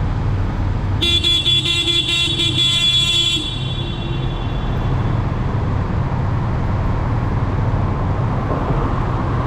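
A vehicle horn sounds for about two and a half seconds, starting about a second in, over a steady low rumble of engine and road noise.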